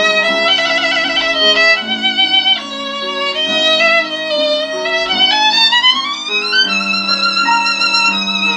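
Solo violin melody with vibrato over lower accompanying notes, with a long upward slide about two-thirds of the way through, played back from CD through a single-ended 6BM8 (6F3P) tube amplifier and bare Isophon oval loudspeakers.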